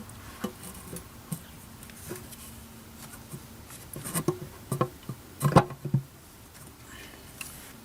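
Irregular clicks and knocks of tools and engine parts being handled, with the loudest cluster about five and a half seconds in.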